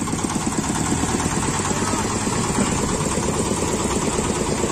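An engine idling steadily, with a fast, even pulse.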